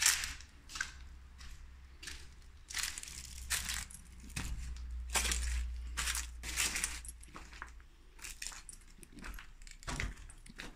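Footsteps crunching over gravel, rubble and fallen plaster debris, an irregular series of crunches, with a steady low rumble underneath.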